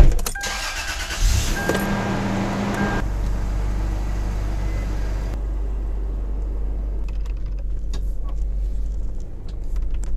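Third-generation Toyota 4Runner's 3.4-litre V6 running with a steady low rumble as the truck drives off. A sharp knock at the very start and a few short chime tones come in the first seconds.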